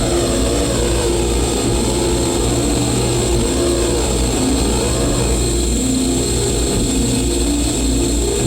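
Live electronic noise music: a loud, dense, unbroken wall of distorted sound over a heavy low rumble, with held tones that jump between pitches and rising-and-falling pitch sweeps.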